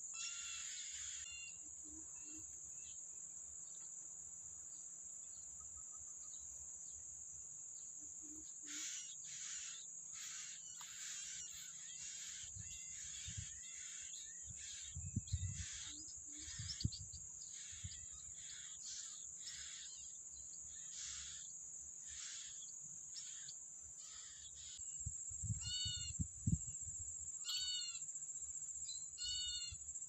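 Yellow-bellied prinia and its nestlings giving many short, high calls while the adult is at the nest, over a steady high-pitched insect drone. Near the end come three louder calls about two seconds apart, and a few low thumps sound in between.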